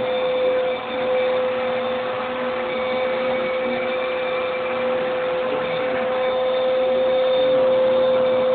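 Steady mechanical hum: one constant mid-pitched tone over an even hiss.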